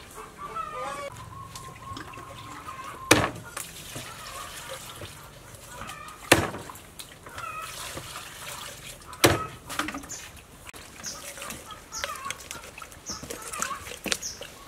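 Meat cleaver chopping a raw whole chicken on a wooden cutting board: three heavy chops about three seconds apart.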